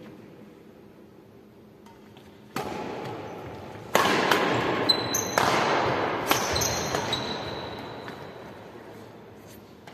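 Badminton rally: sharp racket strikes on the shuttlecock, about four over a few seconds, each ringing out in a large echoing hall. Short high squeaks come in the middle of the rally.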